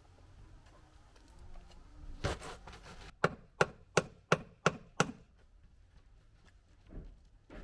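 Six sharp knocks in quick succession, about three a second, like a tool striking wood or brick, with a smaller clatter shortly before them.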